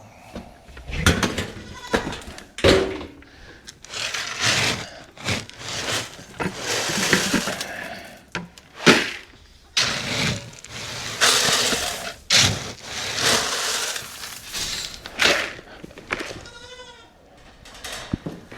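Goats and sheep bleating again and again, mixed with loud rustling and knocking noises. One clear, drawn-out bleat comes near the end.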